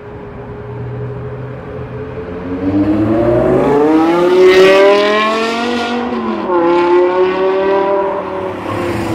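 Wiesmann GT sports coupe accelerating hard past the microphone, its engine note climbing steeply through the revs and loudest as it goes by. It drops sharply at an upshift about six seconds in, climbs again in the next gear, then falls away as the car drives off.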